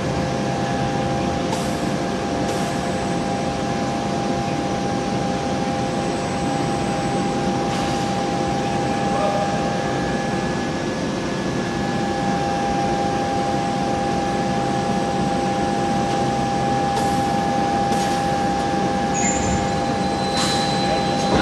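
Steady hum of hot-forging line machinery: several unchanging tones over an even noisy drone, with a few faint clicks.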